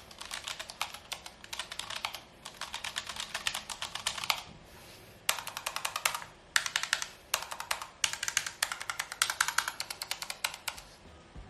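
Typing on a Keychron K1 low-profile mechanical keyboard with Gateron low-profile brown switches: fast runs of key clicks, with a brief pause about four and a half seconds in and another near the end.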